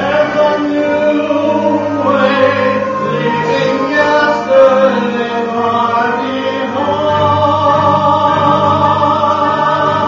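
Choir singing, several voices holding long notes together, with deeper low notes coming in about seven seconds in.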